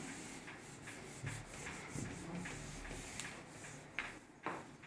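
Faint handling noise: light rubbing and scuffing with small clicks, then two sharper taps near the end.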